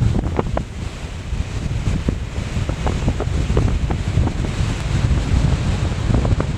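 Strong gusting wind buffeting the microphone: a loud, fluttering low rumble with a hiss of blown sand and dust, and scattered small ticks throughout.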